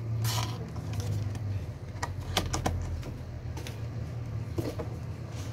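Packaging being handled: a cardboard box and a plastic bag holding a sheathed machete, making a few light clicks and rustles, a cluster of them about two to three seconds in. A steady low hum runs underneath.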